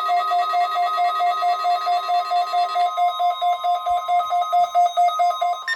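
Weather radio alert alarm for a required weekly test: loud electronic beeping, several tones pulsing about four times a second over a steady tone near 1 kHz. The pattern changes about three seconds in, and a higher-pitched beep takes over near the end.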